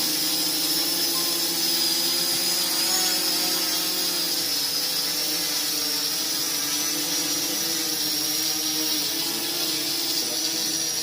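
Parrot Anafi quadcopter drone in flight, its propellers giving a steady buzzing whine with a high thin tone that drifts slightly in pitch.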